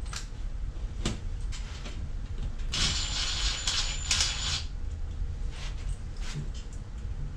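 Cordless driver running for about two seconds near the middle, driving a Tapcon screw into concrete, with a thin high whine over the noise of the drive. A few light knocks from handling the tool come before and after.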